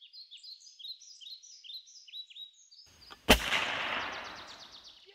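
Songbirds chirping in quick, repeated falling calls, then a single loud shot about three seconds in that dies away in a long fading echo.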